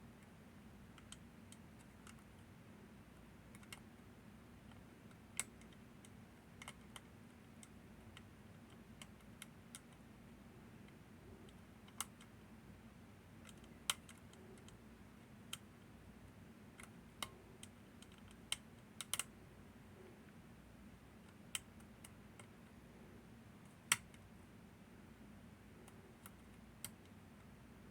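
Sparse, irregular metal clicks and taps from lever-lock picking tools working the levers and tension on a Northern Telecom NE-22 six-lever lock, over a faint low hum.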